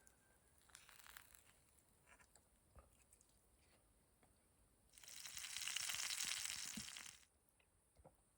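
Faint small clicks and handling noises, then about five seconds in a loud, rushing crackle that swells and fades over about two seconds.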